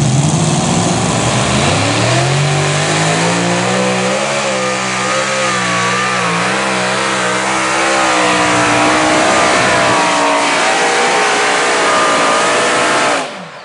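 Modified pulling tractor with several supercharged engines going to full throttle as it pulls the weight sled. The engine pitch rises over the first few seconds, then wavers while it runs flat out, and the sound cuts off suddenly near the end.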